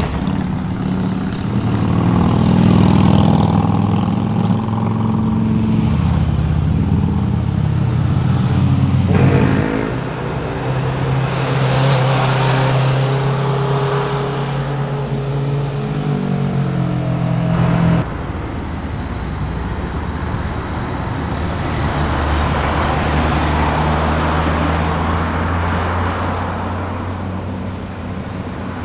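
Motorcycle engines and exhausts as bikes ride one after another through a tight corner, first a cruiser and then sport bikes, each pass swelling and fading. The engine note changes abruptly twice, about a third and two thirds of the way through, as one bike gives way to the next.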